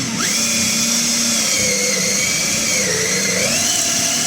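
Electric drill running steadily while boring a hole for the wiring. Its whine dips in pitch for a moment about three seconds in as the bit takes load, then picks up again.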